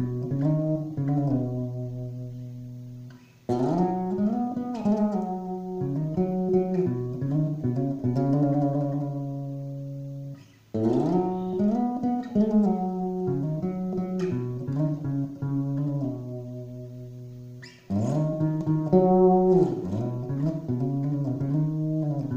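Electric bass guitar played solo: melodic phrases of plucked notes and double-stops with sliding pitches, each phrase ringing out and fading before the next starts, with fresh starts about 3.5, 11 and 18 seconds in.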